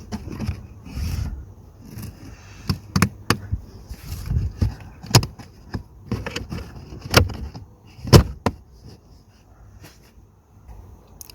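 Plastic interior trim panel being handled and pressed back into place, its clips snapping in: a run of sharp clicks and knocks, the loudest about eight seconds in, thinning out near the end.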